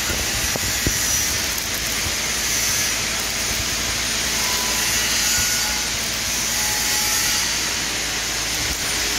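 Stick (SMAW) welding arc crackling and hissing steadily, with a few sharper pops. A broken-off electrode, its flux coating knocked off, is being melted into a burn-through hole in thin-walled steel rectangular tubing to close it.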